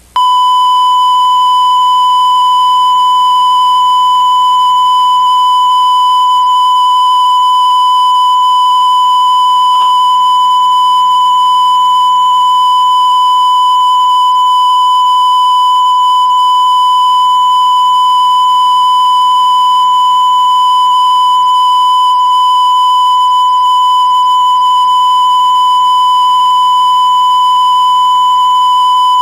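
Steady electronic test tone: one unwavering high pitch that switches on suddenly and holds at a loud, constant level.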